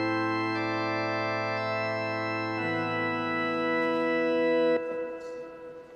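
Organ playing sustained chords that change twice, then stopping abruptly about five seconds in, the last chord dying away in the church's echo.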